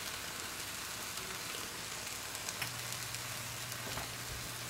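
Potatoes, turkey sausage and freshly poured beaten eggs sizzling steadily in a frying pan.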